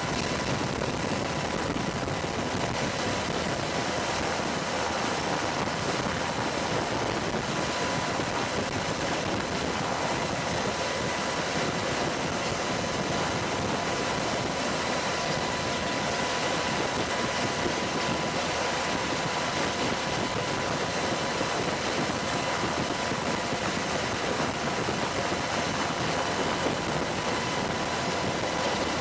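AH-64 Apache helicopter's turbine engines running steadily, a constant whine over an even rush of noise, with no gunfire or rocket shots.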